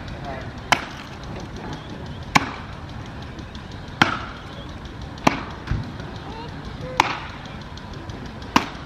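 Axe chopping into an upright wood block on a stand: six sharp strikes, about one every second and a half.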